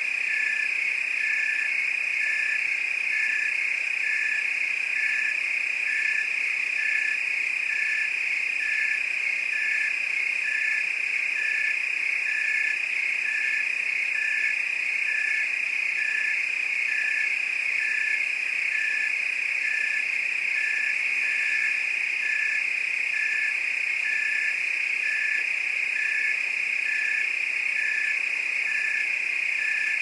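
Crickets and frogs calling: a steady, unbroken high trill, with a lower note pulsing evenly about once a second.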